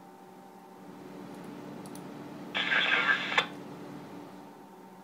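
Radio scanner receiving railway radio traffic: a steady low hum, then about two and a half seconds in a short burst of radio noise, under a second long, that starts and stops abruptly as a transmission keys up and drops.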